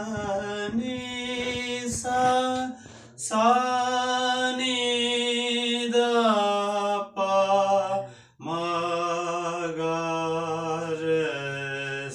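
A man singing solo and unaccompanied in a strong, sustained voice. He holds long notes with some ornamented wavering and breaks briefly for breath about three and eight seconds in.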